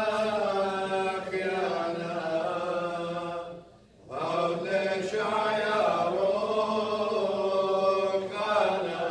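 Unaccompanied choir chanting a Church of the East liturgical hymn in long, slowly moving melodic phrases, breaking off briefly about four seconds in before the next phrase.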